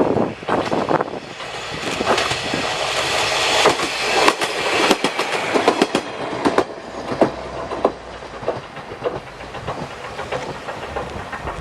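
KiHa 40 diesel railcar running along the track, its wheels clacking over the rail joints. The clatter builds to its loudest about four seconds in, then fades as the railcar moves away.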